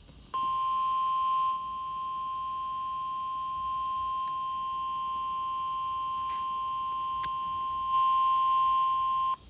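Emergency Alert System attention tone for a severe thunderstorm warning: a single steady high tone held about nine seconds. It is louder for its first second and its last second and a half, then cuts off sharply.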